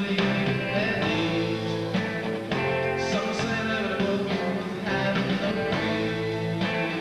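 Live rock band playing: drums and electric guitar with sung vocals.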